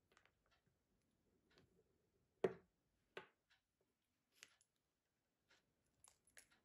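Faint scattered clicks and taps of small watch parts handled on a tabletop as a resin band section comes off the watch case and its metal screw bars are set down, with one louder knock about two and a half seconds in and a smaller one just after.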